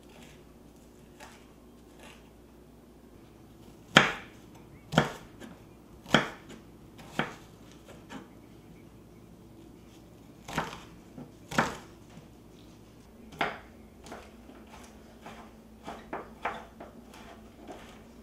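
Kitchen knife cutting carrots on a wooden cutting board: sharp knocks of the blade on the board, several loud single strikes about a second apart, then lighter, quicker cuts near the end.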